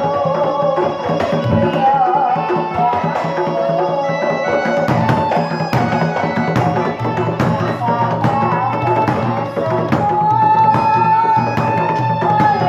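A Bantengan ensemble playing live: Javanese kendang hand drums and a large bass drum beat a busy, driving rhythm under a high, wavering held melody line.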